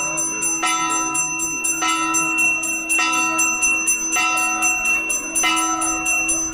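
Metal temple bell rung steadily for the aarti, struck a little less than twice a second, each stroke ringing on into the next.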